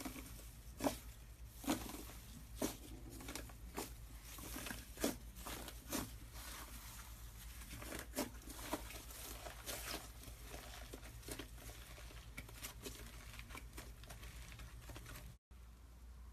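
Hands mixing and stretching gold foil slime, giving irregular sticky pops, clicks and soft crackles. A low steady hum runs underneath, and the sound cuts out briefly near the end before another clip starts.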